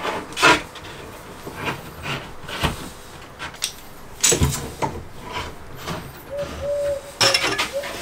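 Screw-handled bar clamps being slid on and tightened against the edges of cabinet panels: scattered clicks and knocks of metal clamp jaws on the wooden carcass, the loudest about half a second in, near four and a half seconds, and just after seven seconds.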